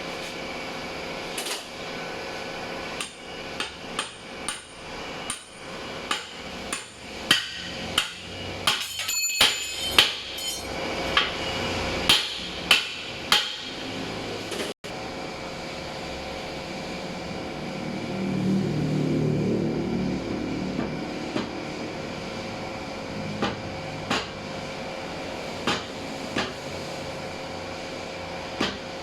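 Hammer blows during assembly of an automatic transmission: a run of sharp strikes about twice a second, then a low rumble for a few seconds and a few scattered single taps later.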